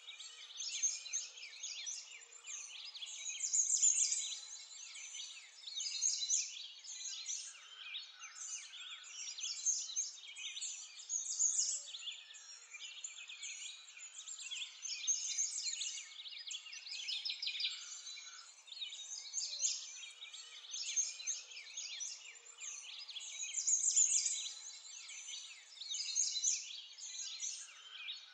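Dense chorus of songbirds chirping and singing, many overlapping high calls that swell and fade every couple of seconds.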